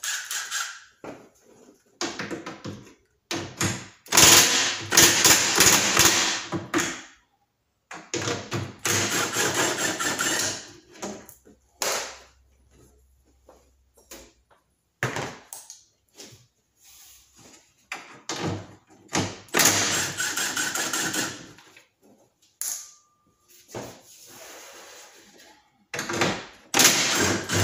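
Milwaukee cordless impact driver with a 10 mm socket running in several bursts of a few seconds each, its rapid hammering backing off the nuts that hold the car's grille, with a few single knocks between bursts.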